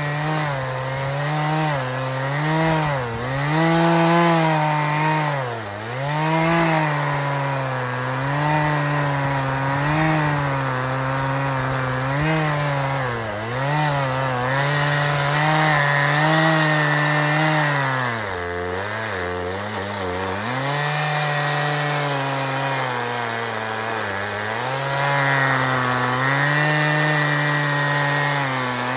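Chainsaw running at high revs while cutting oak, its engine note sagging and recovering again and again as the chain bites into the wood. The deepest bog comes about two-thirds of the way through.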